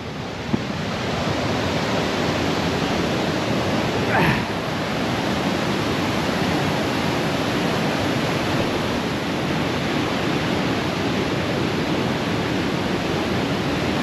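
Waterfall rushing, a steady even wash of falling water. A short gliding sound, rising and falling, cuts through it briefly about four seconds in.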